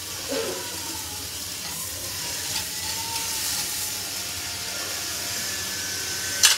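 Chicken steak sizzling on a hot ridged stovetop grill pan, a steady frying hiss, as it is lifted off with tongs. A sharp clatter near the end.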